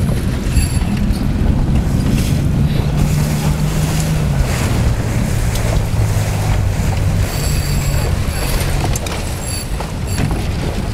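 Motorboat engine running under way, its note dropping about halfway through, with wind buffeting the microphone.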